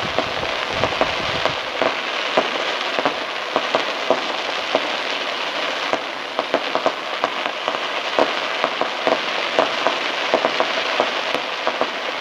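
Fireworks crackling: a dense, steady stream of many small sharp pops from crackle-effect firework stars, with no single big bang.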